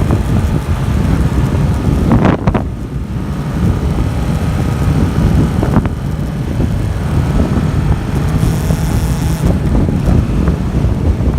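Motorcycle riding: a 2018 Yamaha MT-07's 689 cc parallel-twin engine on its stock exhaust, heard under heavy wind noise on the microphone.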